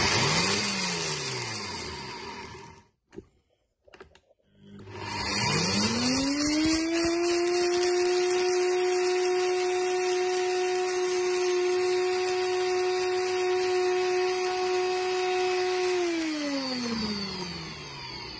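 Personal blender motor grinding roasted whole spice seeds to powder. A short pulse right at the start, a brief pause, then a longer run of about ten seconds: the motor spins up, holds a steady hum under a gritty grinding noise, and winds down near the end.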